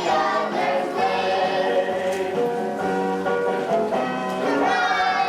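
A chorus of voices singing together in a stage musical, on long held notes.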